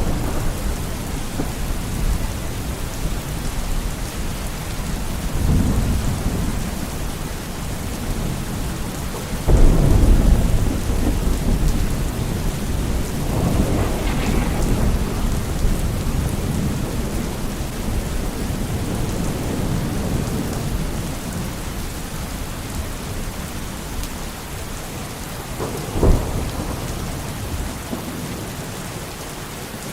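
Steady heavy rain with rolls of thunder. The loudest, deepest roll comes about ten seconds in, and a shorter, sharper thunderclap comes near the end.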